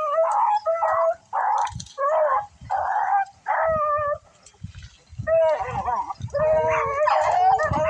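Rabbit hounds baying: a string of short repeated bawls, a brief lull, then several voices overlapping near the end, the pack giving tongue as they run a swamp rabbit's trail.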